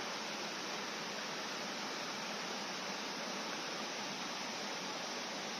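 Shallow stream running over stones: a steady, even rush of water.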